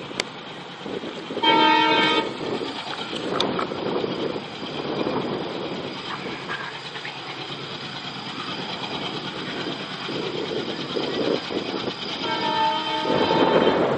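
A WDM-3D diesel locomotive, with a 16-cylinder ALCO engine, runs under power hauling an 11-coach passenger train with a steady rumble. Its horn gives a short blast about a second and a half in, and sounds again about twelve seconds in, as the train draws nearer and grows louder.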